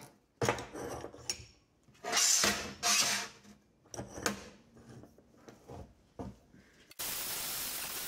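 Homemade steel quick-release cam hold-down clamp being lifted, moved and locked down onto steel sheet on a steel bench: a run of metal clanks, clicks and scrapes. About seven seconds in, an angle grinder with an abrasive disc starts grinding slag off the plasma-cut steel again, a steady grinding noise.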